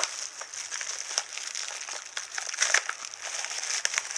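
Packaging being handled, crinkling and rustling with a run of small crackles and clicks.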